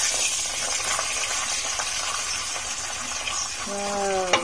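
Bok choy sizzling in hot garlic oil in a wok, a steady frying hiss as it is stir-fried. Near the end a brief, slightly falling tone sounds, followed by a sharp click.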